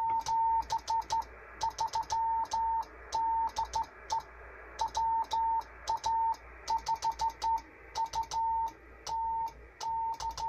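Morse code sent on a 1960s Drake 2NT novice CW transmitter and heard as a steady tone keyed in dots and dashes, each element starting and stopping with a click. The tone is clear with no chirp, a sign of a stable, clean-keying transmitter.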